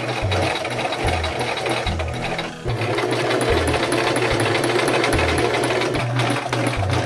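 Electric domestic sewing machine running, stitching a patch onto thick woven jiu-jitsu gi fabric. It pauses briefly about two and a half seconds in, then runs on a little louder.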